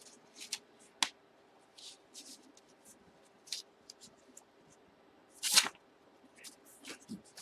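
Paper and cardstock being handled: short scattered rustles and slides as a cardstock envelope is opened and a paper slip is pulled out, with a sharp click about a second in and the loudest swish about five and a half seconds in.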